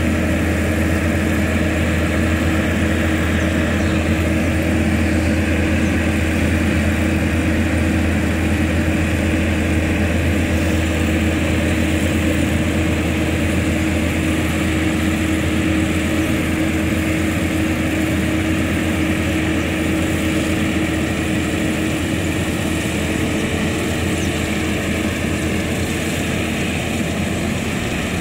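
Crawler-type rice combine harvester running steadily while it cuts and threshes rice: an even, unbroken engine-and-machinery drone with a strong low hum and a steady higher tone over it.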